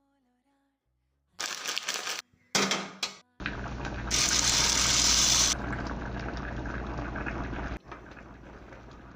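Two short bursts of handling noise, then water running into a pot. The rush is loudest for about a second and a half and then carries on more softly to the end.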